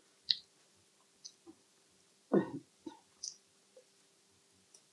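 Eating mouth sounds: scattered soft clicks and smacks of chewing, with one short throat sound about two and a half seconds in.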